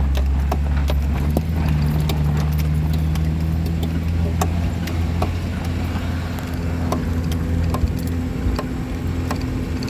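Vehicle engine running steadily at low speed while the vehicle crawls over rough, rocky trail, with scattered sharp knocks and rattles throughout.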